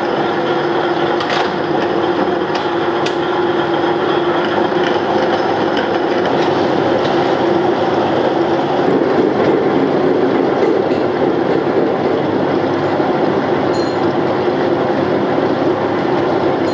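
Gear-hobbing machine running steadily as its spiral hob cuts teeth into a stack of motorcycle front sprocket blanks under flowing coolant: a constant hum over a dense grinding noise, with a few sharp clicks.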